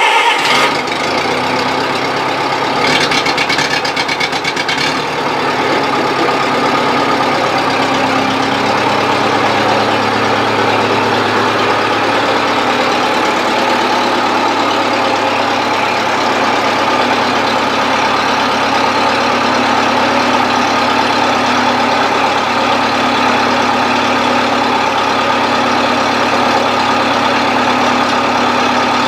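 Bobcat 610 skid steer's carbureted four-cylinder gas engine running just after a cold start on the choke. Its note shifts briefly a few seconds in, then it settles into a steady idle.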